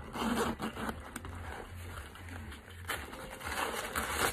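Zipper on the front pocket of a canvas backpack being pulled open, with the bag rustling as it is handled. Two brighter scratchy bursts stand out, near the start and near the end.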